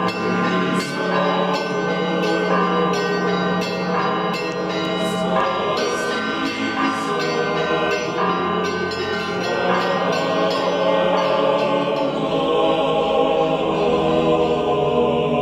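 Choral music with bells ringing: voices hold sustained chords while bells strike in a quick regular pattern for about the first nine seconds, then the choir carries on alone.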